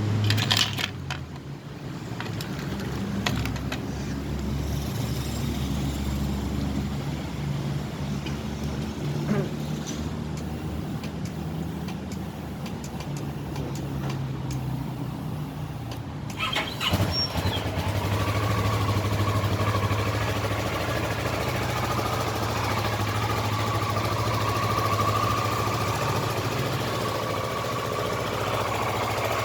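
Kawasaki ER-6n's 649 cc parallel-twin engine running at idle. About seventeen seconds in there is a short clatter, after which the engine runs louder and steadier.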